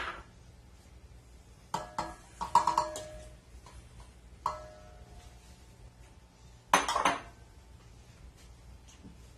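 Metal clinks and knocks on a KitchenAid stand mixer's stainless steel bowl, a handful of strikes in small groups, several ringing briefly after the hit.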